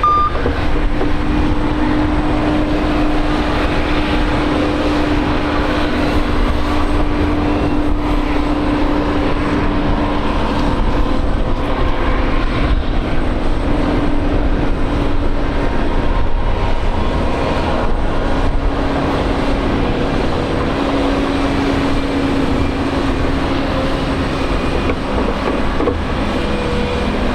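Airbus A321neo's jet engines running at low power on the ground: a steady rumble with a humming tone that drifts slightly lower a little past halfway.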